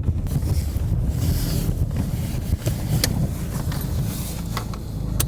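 Steady low rumble of a car on the move, with wind noise and a few faint clicks.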